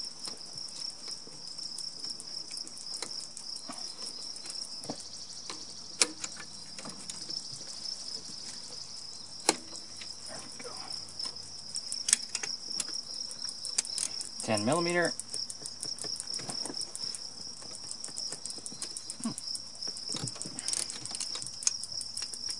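Steady high-pitched insect chirring throughout, with scattered sharp clicks and ticks of hand tools and linkage parts being worked on an engine.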